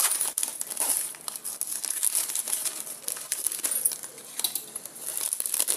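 A plastic packet of dry vermicelli crinkling and crackling as it is torn open and the vermicelli inside is broken up by hand. It makes a continuous rustle of many small crackles.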